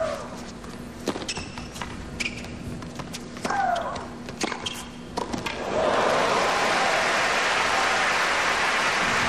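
Tennis rally: several sharp racket strikes on the ball about a second apart, with short player grunts on the shots. About six seconds in the point ends and crowd applause starts, louder than the rally and steady to the end.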